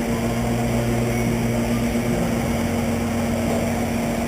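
Electric motors of 2wd stock RC racing trucks whirring steadily as they run.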